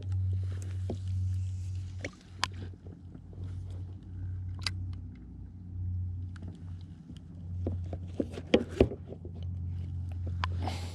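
Minn Kota Endura C2 30 electric trolling motor running with a steady low hum, with scattered knocks and clicks and a few short bursts of hiss.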